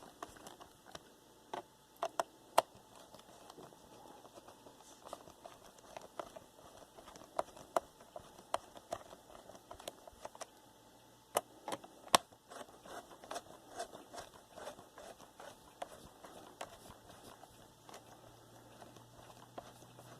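Scattered small clicks and taps of a plastic laptop case being handled and its screws driven back in with a screwdriver, with a few sharper knocks about two seconds in and again around eleven to twelve seconds in.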